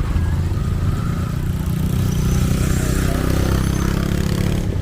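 Small motorbike engine running close by, over street noise, its engine note strongest in the second half.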